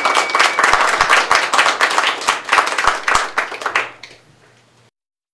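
A small group of people clapping by hand, dense and uneven, dying away about four seconds in.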